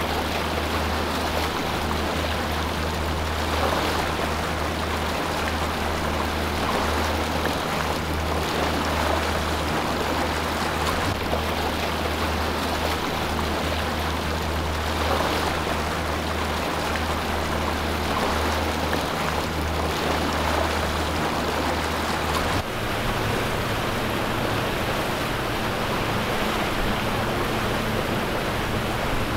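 Steady rush of water with a low hum from a boat's engines running. The hum changes abruptly about 23 seconds in.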